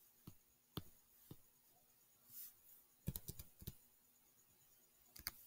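Faint, scattered clicks of numbers being entered on a computer: three single clicks in the first second and a half, a quick cluster of clicks a little after three seconds in, and two more near the end.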